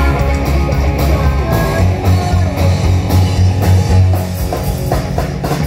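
Rock band playing live on stage: electric guitar over a heavy bass line and a steady drum-kit beat.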